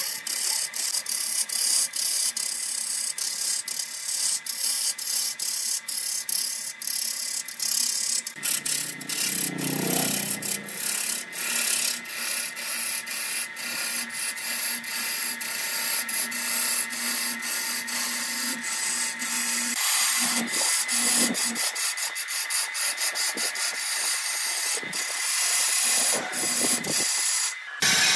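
Turning tool cutting into an areca stump spinning on a wood lathe: a steady scraping hiss peppered with rapid clicks as shavings fly off. A lower hum joins briefly a third of the way in.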